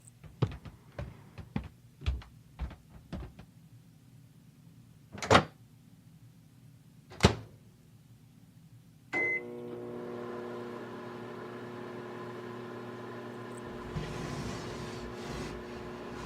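A run of light taps, then two sharp clunks. About nine seconds in, a microwave oven beeps once and starts running with a steady hum.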